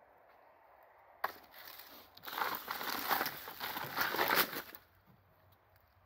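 Old wooden bee-hive frames being handled and set down on dry leaf litter: a sharp knock about a second in, then about three seconds of crackling and rustling as wood and brittle debris are moved, and it stops near the end.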